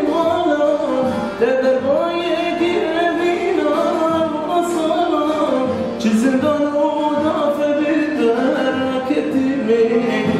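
A man singing a Kurdish song in long held notes that bend and glide, accompanied by a long-necked saz (bağlama).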